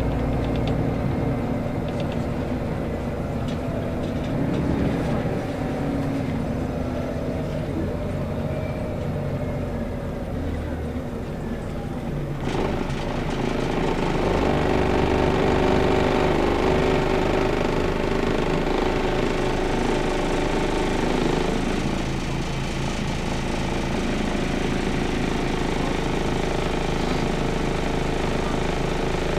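Scania L94UB bus heard from inside the passenger cabin while driving: its engine running under the drive of a ZF automatic gearbox over steady tyre and road noise. The engine note climbs for several seconds, changes abruptly about twelve seconds in and then runs louder and steady, settling lower near the end.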